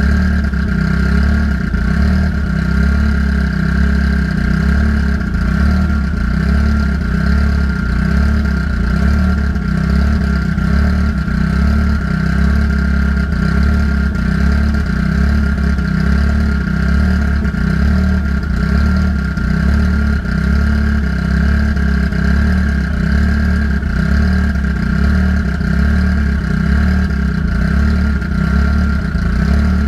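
Car engine idling steadily with an even low throb and a steady high whine over it, run at idle to burp air out of the cooling system after a radiator replacement.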